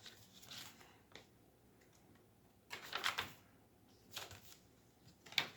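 Paper pages and folded inserts of a handmade junk journal being handled and turned: scattered short rustles and soft clicks, with a louder cluster of rustling about three seconds in and a sharp tap near the end.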